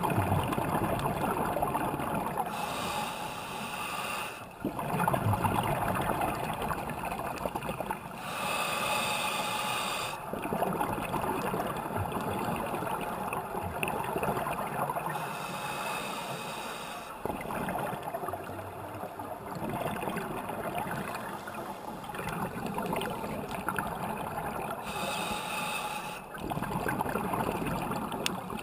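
Scuba diver breathing through a regulator underwater: short hissing inhalations alternate with longer rushes of bubbling exhaled air, a breath about every six or seven seconds.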